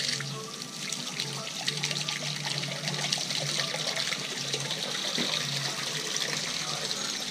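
Steady hiss of tyres rolling on wet asphalt as the boat is towed, with small crackles throughout, under background music.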